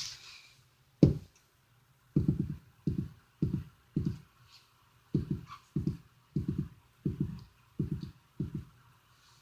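Footsteps walking across the floor: about a dozen dull, low thuds at roughly two steps a second, with a short pause about four seconds in.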